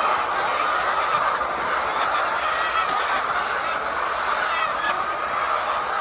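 A large flock of white hens clucking and calling all at once: a dense, steady din with no pauses.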